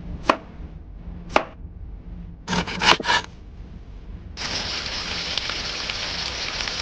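Kitchen cooking sounds: two sharp knife chops on a board about a second apart, then a quick run of three chops, followed by a steady frying sizzle that starts a little past halfway through.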